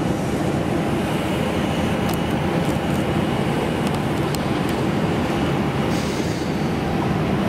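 Steady, loud low rumble of engine and vehicle noise on an airport apron, with a faint high whine and a few light ticks.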